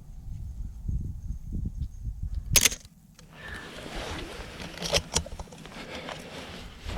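One sharp mechanical clack about two and a half seconds in, a Canon AE-1 35 mm film camera's shutter firing, amid low rumble and rustling handling noise.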